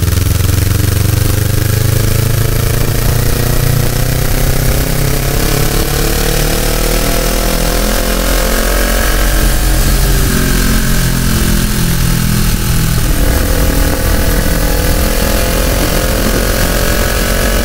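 Sport motorcycle engine heard from an onboard camera as the bike is ridden at speed. Its pitch climbs for several seconds and then shifts, under heavy wind rush on the microphone.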